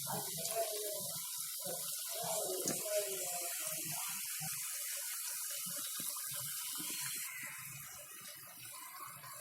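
Small balls of rice and urad dal batter deep-frying in hot oil, a steady sizzling hiss that drops off about seven seconds in.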